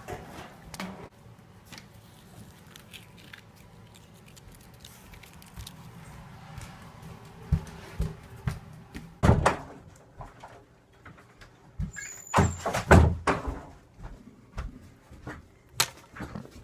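Scattered knocks and thumps in a small room, with a loud bang about nine seconds in and a cluster of heavier thumps around thirteen seconds in.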